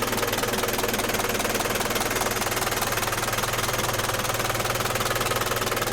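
Isuzu Elf truck's 3.6-litre diesel engine idling steadily.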